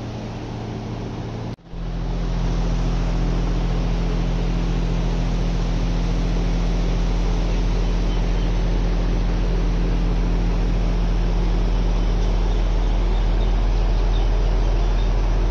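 Electric fan running: a steady rush of air with a low electric motor hum. It drops out briefly about a second and a half in, then carries on a little louder.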